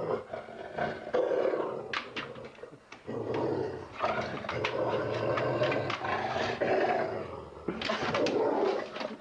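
A dog growling and vocalising in rough stretches, with a few sharp knocks in between.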